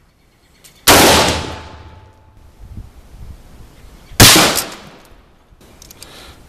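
Two rifle shots from a Smith & Wesson M&P 15-T in 5.56x45, about three seconds apart, each followed by a long fading echo.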